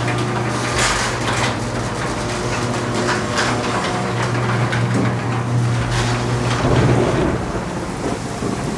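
A garage door opener's motor runs with a steady hum and rattle as the sectional door rolls up. It stops about two-thirds of the way through, leaving the hiss of rain falling outside.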